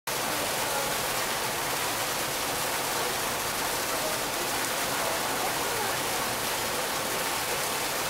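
An artificial waterfall fountain: a single stream of water falling from a high spout into a shallow pool, splashing steadily.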